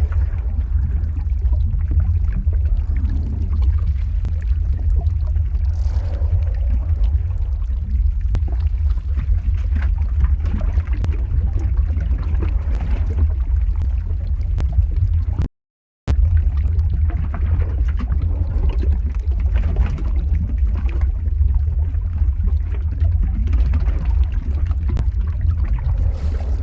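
Lava flow ambience sound effect: a steady deep rumble with a layer of small crackles and bubbling over it. It cuts out completely for about half a second midway, then resumes as before.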